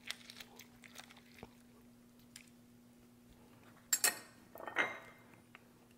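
Faint kitchen handling of a lime being squeezed and juiced over a salsa bowl with a fork pushed into it, with a few soft ticks and squishes. About four seconds in come two short clinks of a metal utensil, all over a faint steady hum.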